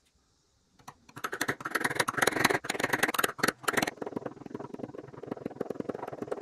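Ball-peen hammer tapping rapidly on a small flat metal part laid on a cloth, many quick strikes a second. The blows start about a second in, are heaviest for the next three seconds, then carry on lighter.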